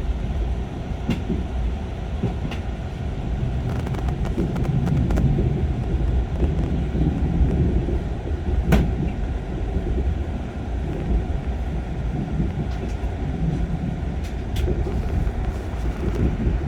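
Mugunghwa passenger train rolling out of the station: a steady low rumble of wheels on rail, with scattered clicks as the wheels cross rail joints and switches, the sharpest about nine seconds in.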